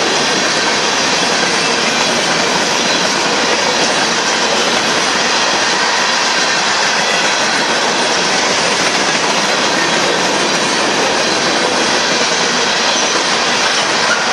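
BNSF coal train's open-top coal cars rolling steadily past, the continuous loud noise of steel wheels running on the rails.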